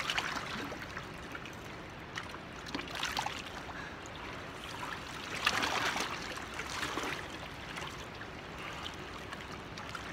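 River water rushing and lapping against a rocky bank, with light clicks and rustles of pliers working a hook out of a fish's mouth, and one louder rush of noise a little past halfway.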